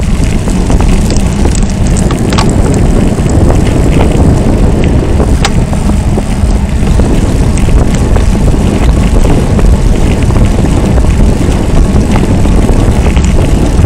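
Wind buffeting and tyre road noise on a bicycle's rear-mounted camera microphone while riding, a loud, steady low rumble with a few light clicks.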